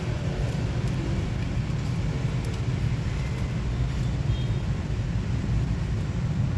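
Steady low rumble of outdoor background noise, with no cat calls heard.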